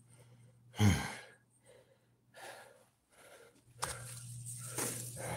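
A man breathing hard after exertion: a loud voiced sigh about a second in, then quieter breaths. A steady low hum and a few clicks come in near the end.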